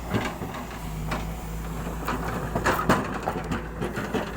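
Excavator engine running low and steady under irregular knocks and crunches of rock and soil being dug and moved, the loudest a cluster about two to three seconds in.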